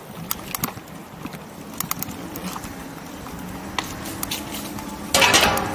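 Electric bike being ridden, heard from a camera mounted on it: scattered clicks and rattles over a low steady hum, with a loud burst of noise about five seconds in.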